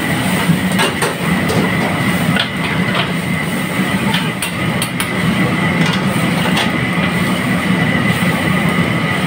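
Steady roar of a restaurant wok range running, with a few sharp clinks of a steel ladle against the carbon-steel wok.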